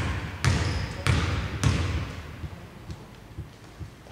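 A basketball bounced repeatedly on the hardwood court, about one bounce every two-thirds of a second for the first two seconds, each echoing around the near-empty arena, then a few fainter thuds.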